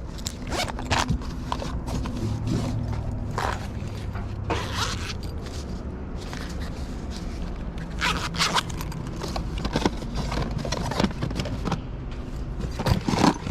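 Tools and gear being rummaged through and handled inside a tool bag: scattered clinks, clicks and scrapes, over a steady low hum.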